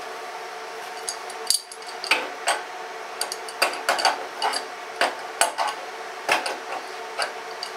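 Irregular sharp metallic clicks and clinks of hands handling metal tools and threaded air fittings on the air compressor's steel panel. The clicks begin about a second in and come a few times a second, over a steady background hum.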